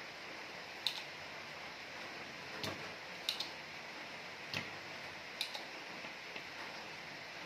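Desoldering pump (solder sucker) clicking as it is cocked and fired to pull solder off a resistor's joints on a TV circuit board: about seven sharp clicks, some of them paired, over a steady hiss.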